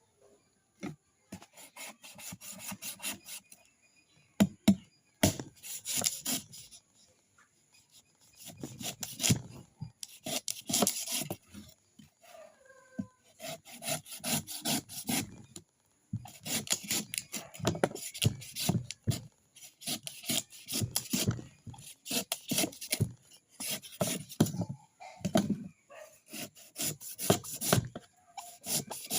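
Rapid rasping strokes in bursts of a few seconds, with short pauses between them: coconut being scraped.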